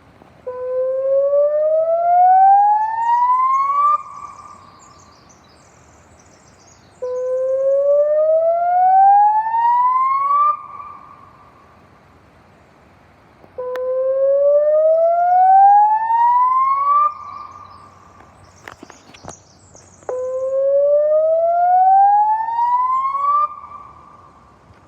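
Puntledge Park electronic warning siren sounding on test: four identical rising whoops. Each glides upward over about three and a half seconds, holds its top note briefly, then cuts off, repeating about every six and a half seconds.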